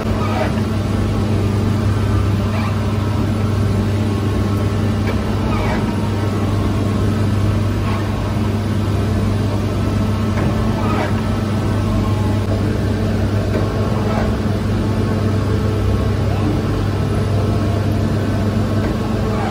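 Electric bakery dough machinery running with a steady low hum, with faint clicks every second or two.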